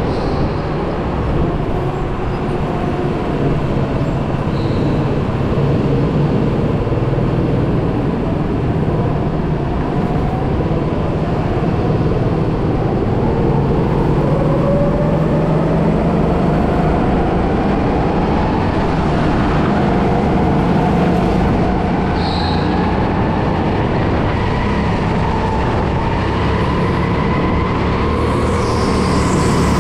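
Onboard sound of an electric go-kart: a steady motor whine over dense chassis and tyre rumble. About halfway through, the whine starts climbing in pitch as the kart gathers speed.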